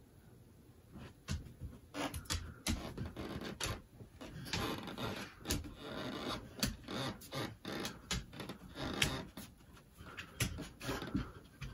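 A dog's claws clicking and scratching on a hardwood floor, with fabric rubbing as it paws and drags a pillow. It starts about a second in as a quick, irregular run of clicks and scrapes.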